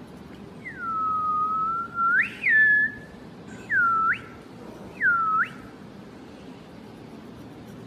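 A person whistling: a long held note that swoops upward at its end, a short note after it, then two quick notes that each dip down and rise back up.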